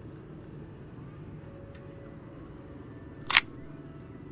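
A single sharp camera shutter click about three seconds in, over a steady low background rumble.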